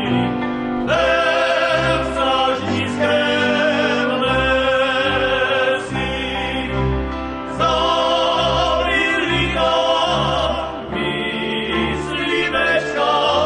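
A cimbalom band playing a folk song: men singing together over violins, cimbalom and a double bass keeping a steady low beat.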